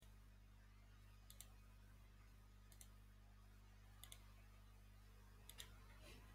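Near silence with a low steady electrical hum, broken by faint computer mouse clicks, mostly in quick pairs, about four times.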